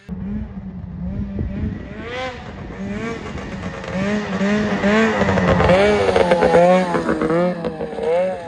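Ski-Doo 600RS two-stroke snowmobile engine revving up and down again and again, about once a second. It grows louder as the sled comes close, loudest about five to seven seconds in, then eases as it pulls away.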